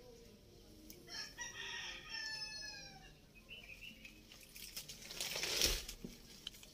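A bird's long call in the background, lasting about two seconds and falling in pitch; near the end, a louder burst of rushing noise.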